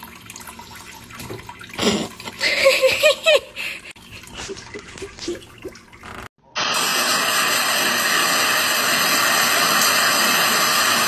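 A few short wavering pitched calls and knocks, then after an abrupt cut a loud, steady hiss of running water that lasts to the end.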